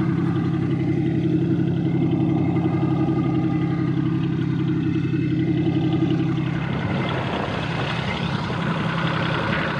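Boat engine running steadily at idle, with a low even hum; its note thins and changes about seven seconds in.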